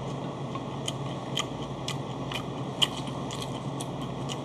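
Close-up chewing of raw gizzard shad sashimi: many small, sharp clicks scattered irregularly, over a steady low hum.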